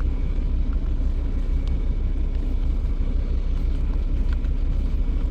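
Microwave oven running: a steady low hum with a grainy rumble that doesn't change.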